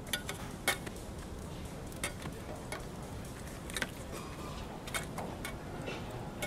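Steel plates and utensils clinking and tapping at irregular intervals as they are handled, over a steady low background hiss.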